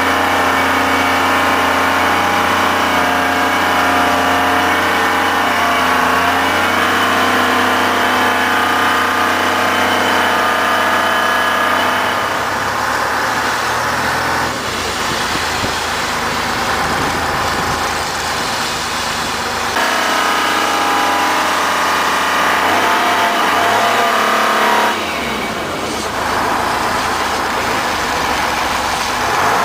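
Rough-terrain crane's diesel engine running at a steady idle. The engine note grows weaker and rougher between about twelve and twenty seconds in, returns, then fades again near the end.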